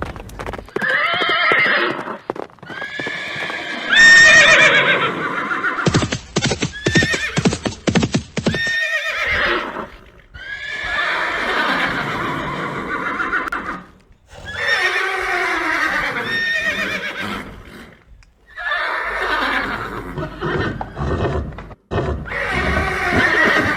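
Horses whinnying, about six long neighs one after another with short gaps between, and a stretch of hoof clip-clop in the middle.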